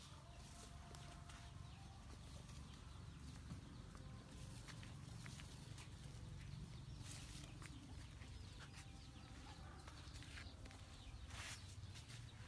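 Quiet countryside ambience: faint rustling and light clicks of leaves and twigs as fruit is picked from a custard apple tree, with faint animal calls in the distance over a low rumble.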